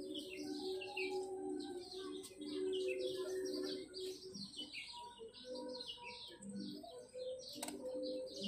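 Many small birds chirping in a steady chatter of short, quick, falling chirps.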